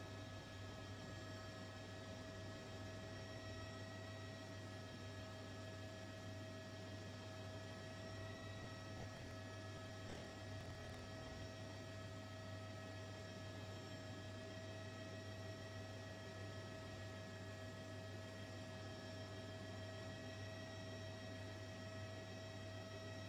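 Steady low electrical hum with several faint, unchanging higher tones above it.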